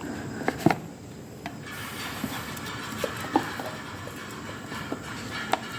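A phone box and its packaging being handled: scattered light knocks and clicks, with a rustling hiss from about two seconds in.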